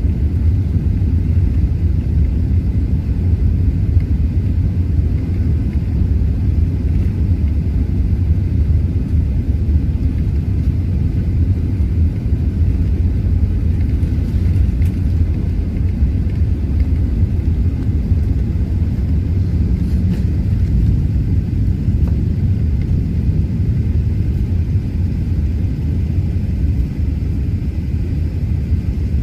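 Steady low rumble of an Airbus A380's engines and airflow heard inside the passenger cabin, even and unchanging.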